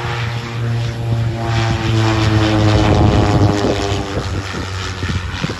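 Propeller aircraft passing by: a steady engine drone that swells to its loudest about three seconds in, dropping slightly in pitch as it goes past, then fades.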